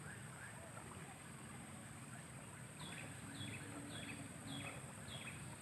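A bird repeating a short, high, falling call about twice a second, starting about three seconds in, over faint outdoor background noise.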